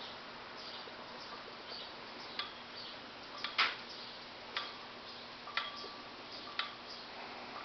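Ceiling fan ticking about once a second as it spins, a sharp light click each time, over a steady hiss.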